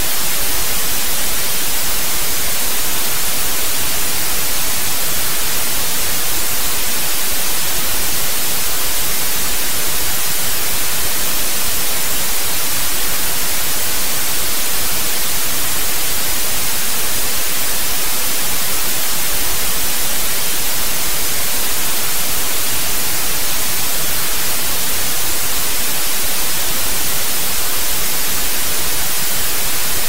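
Analog cassette tape hiss, a steady, even hiss that is brightest in the treble, with no change or break.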